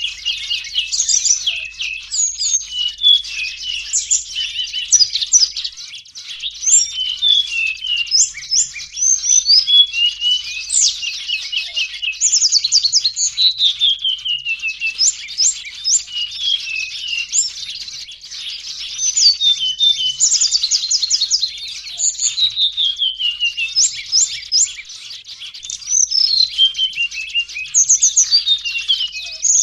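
A noisy chorus of small birds, flowerpeckers among them, chirping all at once: dense high-pitched chips and quick descending trills overlap without a break. This is busy small-bird chatter of the kind played as a lure call for catching small birds.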